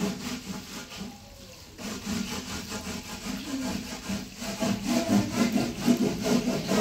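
Repeated back-and-forth rubbing strokes of wood, several a second, going quieter for a moment about a second in.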